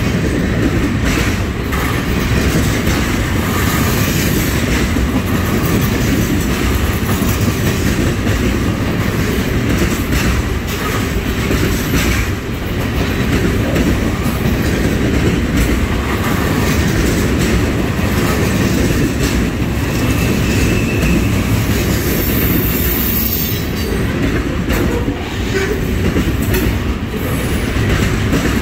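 Loaded trash-container freight cars rolling past close by: a loud, steady rumble of steel wheels on rail, with knocks as the wheels cross rail joints and a few brief high wheel squeals in the second half.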